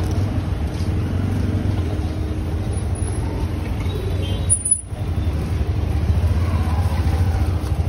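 Busy street ambience: a steady low rumble of motor traffic from passing auto-rickshaws and motorbikes, with general market bustle. The sound briefly drops out about two-thirds of the way through.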